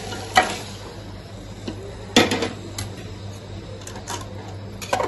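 Aluminium utensils knocking and clinking against a metal cooking pot as boiled mutton is tipped in from a perforated plate. There are a few sharp clanks, the loudest about two seconds in and a quick cluster near the end, over a steady low hum.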